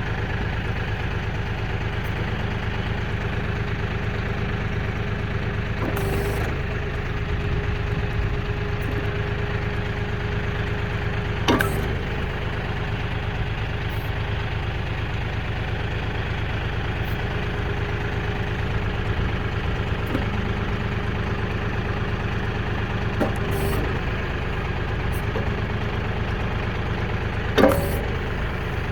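Kioti KB2475L compact tractor's diesel engine running steadily, with a steady higher tone joining for several seconds about a fifth of the way in. Two sharp knocks stand out, one near the middle and a louder one near the end.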